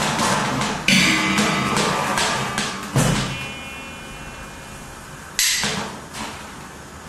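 Free-improvised music of struck objects: three sharp hits, about a second in, about three seconds in, and about five and a half seconds in. The middle hit leaves a metallic ring that dies away. Behind the hits, a dense noisy wash fades out.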